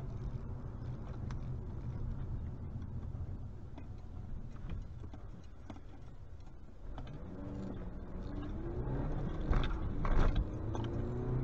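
Car engine and road noise heard from inside a car. About seven seconds in the engine note starts climbing as the car accelerates, and two loud short sounds come near the end.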